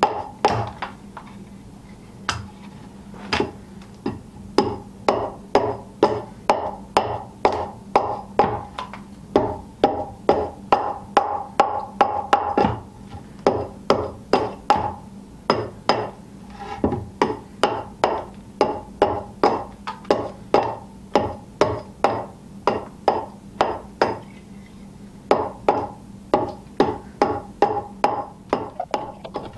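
Small hand axe hewing the edge of an upright wooden board braced on a chopping block: quick sharp strikes, about two a second, in runs with short pauses, each blow giving a hollow, ringing knock from the board.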